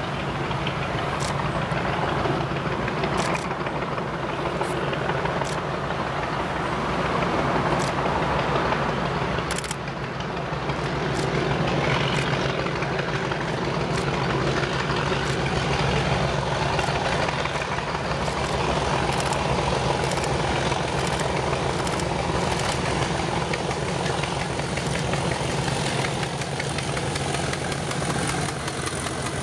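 Two Class 37 diesel locomotives, each with an English Electric V12 engine, working hard under full power up a steep gradient, making a loud, steady racket with a few sharp clicks over it. One engine coughs and splutters, which the recordist takes for major fuel starvation.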